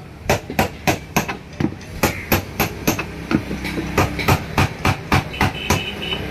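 Hammer striking a cold chisel to cut through the lid of an iron tin: a steady run of sharp metallic strikes, about three a second.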